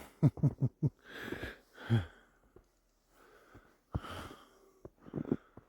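Short bursts of heavy breathing and snorts, some airy puffs and some short low grunting pulses, separated by brief pauses.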